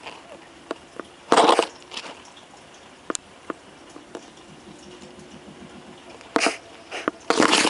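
Male cockatiel hissing in three short bursts, a defensive threat while guarding his eggs: one about a second and a half in and two close together near the end, with a few small clicks between.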